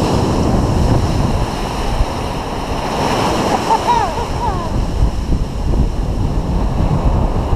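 Sea surf washing and breaking around the legs of people standing in the shallows, with wind rumbling on a handheld action camera's microphone.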